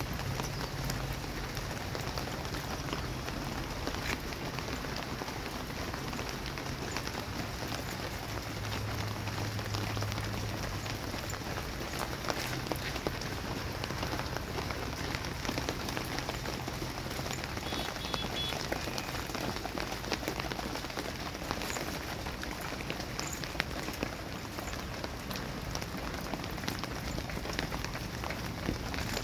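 Steady rain falling on potted plants and a wet concrete terrace floor: an even hiss dotted with many small drop taps.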